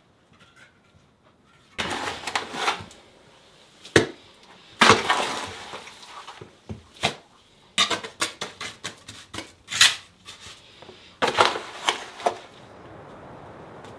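A small trowel scraping loose rubble and dirt from the base of a dry stone wall, with stones and grit clattering into a plastic bucket, in irregular bursts of scraping and sharp knocks. Near the end it gives way to a steady hiss.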